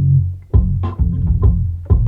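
Instrumental beat: a deep, plucked bass line under sharp drum hits.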